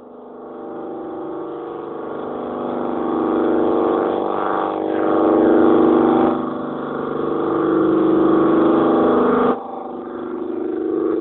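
Minimoog synthesizer played through a Sunn Concert keyboard amp: a sustained buzzy drone that swells in loudness, with sweeps in tone about four seconds in, sudden shifts in sound a little after six seconds and at about nine and a half seconds, and a rising sweep near the end.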